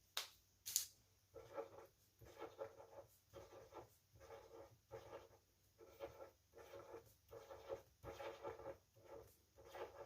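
Felt-tip marker dabbing and stroking on paper, a faint, quick run of short strokes about two or three a second.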